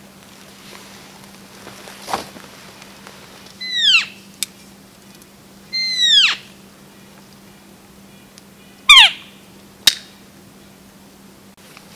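Elk cow mews: three short, high calls, each falling steeply in pitch, a couple of seconds apart, with a couple of sharp clicks between them.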